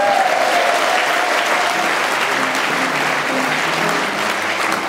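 Audience applauding. A held, wavering note fades out in the first two seconds, and piano notes start to come in under the clapping about halfway through.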